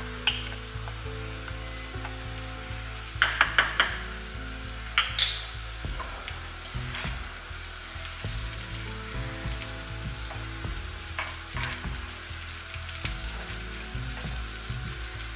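Potatoes frying in a pan with a steady sizzle, stirred with a utensil that clicks against the pan: a quick run of four sharp clicks about three seconds in, a louder knock about five seconds in, and lighter clicks later on.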